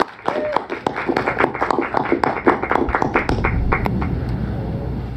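Small audience clapping and cheering, with a short whoop near the start. The applause dies away near the end.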